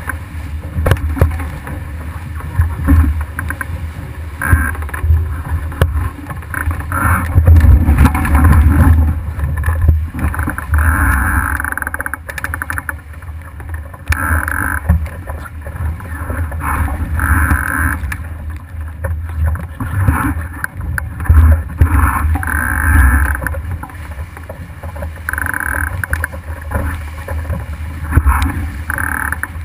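Water rushing and splashing against the hull of an RS300 sailing dinghy under way, surging and easing repeatedly as the bow cuts through the chop, over heavy wind buffeting on the microphone.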